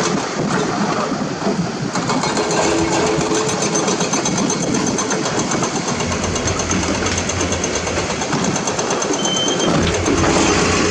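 CAT 320D hydraulic excavator's diesel engine and hydraulics working under load as it digs limestone rubble and lifts a full bucket, with rock scraping and rattling. A heavier low engine rumble comes in about halfway through, as the loaded boom rises.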